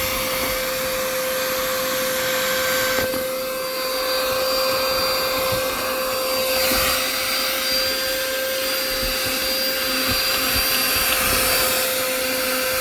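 Small car vacuum running steadily with a constant motor whine over a rush of air as it sucks up sand and debris. The rush of air changes in character about three seconds in and again about six and a half seconds in.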